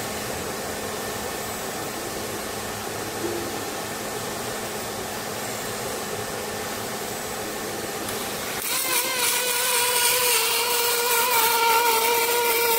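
Steady machine hum and hiss from a robotic welding workstation. About two-thirds of the way through it gets louder, and a motor whine with several steady pitches comes in.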